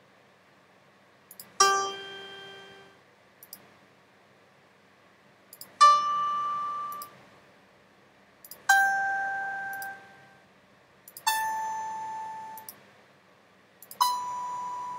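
Single notes from an on-screen piano in a web piano app, played one at a time by clicking keys: five notes a few seconds apart, each struck and fading over about a second, with a faint click just before each.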